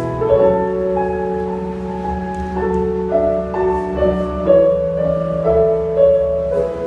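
Background music: slow piano with sustained notes moving in a gentle melody.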